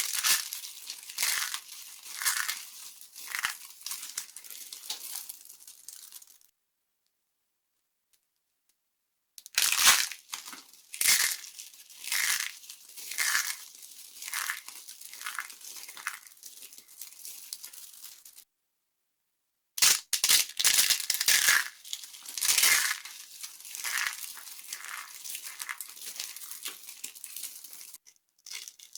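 Dry soap being crushed and crumbling: crisp crackling and crunching in three stretches, each opening with a few sharp cracks, separated by abrupt cuts to silence.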